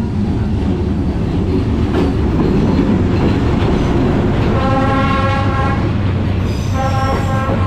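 A train rumbling by loudly, with its horn sounding two long blasts in the second half, the second carrying on at the end.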